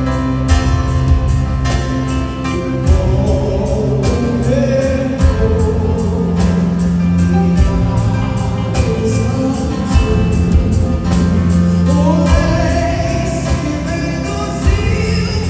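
Gospel song performed live: singing over a band with a steady beat.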